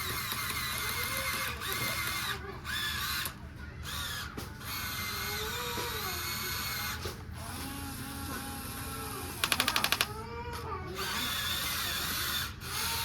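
Small electric motors of a radio-controlled toy excavator whirring, starting and stopping. About three-quarters through comes a short, loud burst of rapid clicking.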